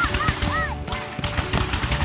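Fireworks crackling and popping in rapid succession, over music with a steady low bass.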